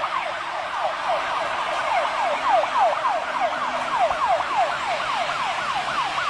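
Emergency siren sounding a fast yelp, its pitch sweeping about four times a second, going on without a break.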